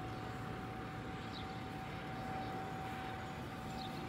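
Distant small single-engine airplane droning steadily as it circles back, with a few short high chirps over it.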